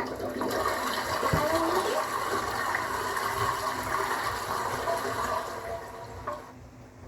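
Water rushing steadily for about six and a half seconds, then dying away.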